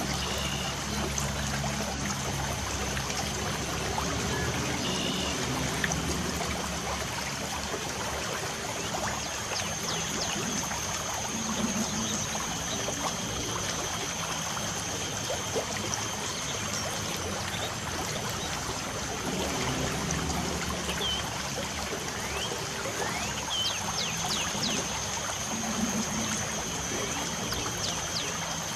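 Light rain falling as a steady even hiss, with birds chirping briefly now and then. About a third of the way in a thin, steady high tone joins in.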